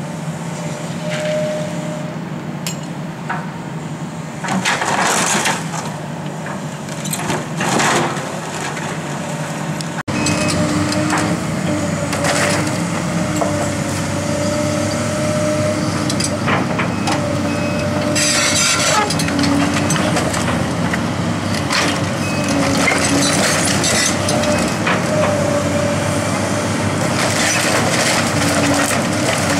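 Tracked hydraulic excavator demolishing a building: wood and masonry crack, splinter and crash down as the bucket tears at the roof and walls, with two loud crashes about five and eight seconds in. From about a third of the way through, the excavator's diesel engine runs steadily under the breaking and crunching of debris.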